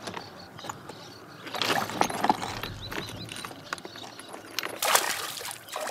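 A hooked bass splashing at the surface of the lake as it is reeled in, in short bursts, with the loudest, sharpest splash about five seconds in.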